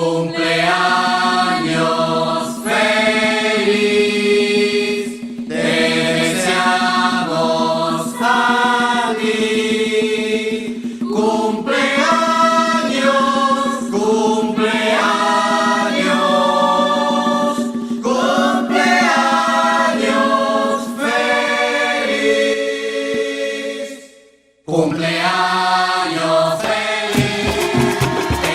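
Vocal music: voices sing in choir-like phrases over a steady held low note, breaking off about 24 seconds in. The music resumes, with quick rhythmic percussion strokes starting near the end.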